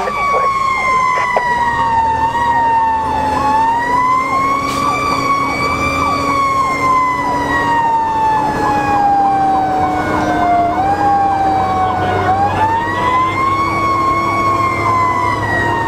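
Fire engine's Federal Signal PowerCall electronic siren wailing, heard from inside the cab: one tone sliding slowly down and back up every several seconds, with a quicker repeating warble under it. The truck's engine runs underneath.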